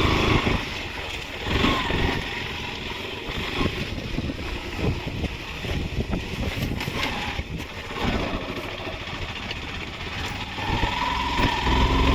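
Motorcycle engine running as the bike rides a rough dirt trail, its pitch rising and falling with the throttle near the start and again near the end, with wind buffeting the microphone.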